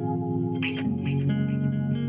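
Background score of held notes with slow chord changes, led by guitar.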